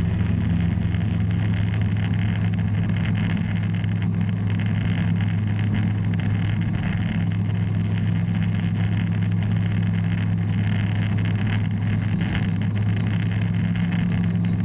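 Bristell light aircraft's piston engine and propeller running at a steady drone, with an even low hum and a rushing noise over it.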